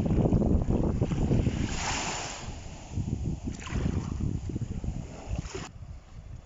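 Small, calm sea waves washing in over sand at the water's edge, with a hissing wash about two seconds in and again near four seconds. Wind buffets the microphone throughout and is the loudest sound.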